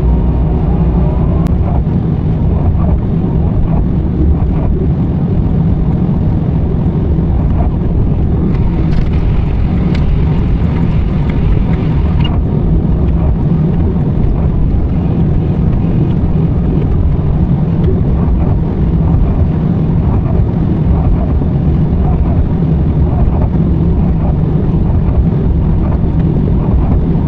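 Diesel engine of heavy construction plant running steadily under work, with a few seconds of added hiss in the middle.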